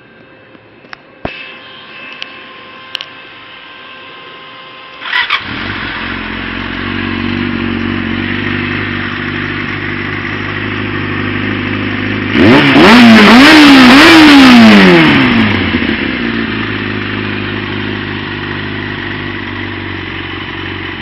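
2004 Yamaha R6 inline-four with an aftermarket slip-on silencer: after a few light clicks, the engine is cranked and catches about five seconds in, then idles steadily. Near the middle it is revved three times in quick succession, the loudest part, and drops back to idle.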